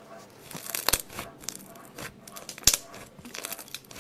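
Clay slime being pulled apart and pressed with the fingers, giving bursts of sharp sticky crackles and small pops. One louder single pop comes a little past the middle, and another run of crackles near the end.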